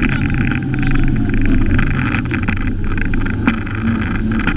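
Fiat Cinquecento 1400 rally car's engine heard from inside the cabin, running hard with its note falling and rising, over road and tyre noise and a few sharp knocks.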